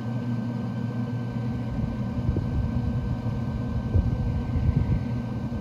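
Pellet grill running, its fan giving a steady hum, over a low, uneven rumble that swells about four seconds in.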